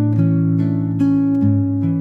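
Background music: acoustic guitar plucking a melody, a new note every quarter to half second.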